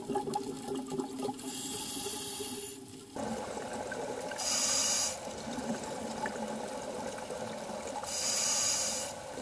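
Underwater sound through a diver's camera: a steady watery rush with three bursts of bubbling hiss a few seconds apart, the diver's breathing bubbles from the regulator.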